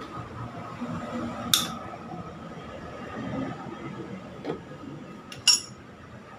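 Metal hand tools clinking against the engine as a starter motor is worked loose from a Honda TMX 125 Alpha. There are two sharp metallic clinks, about a second and a half in and again near the end, with a few quieter tool taps between them.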